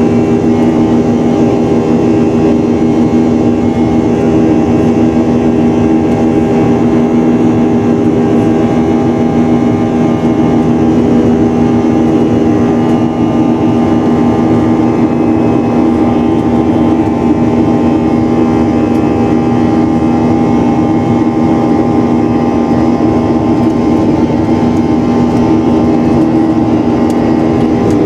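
Airliner cabin noise: the steady, loud drone of the jet engines and rushing air, with several unchanging hum tones.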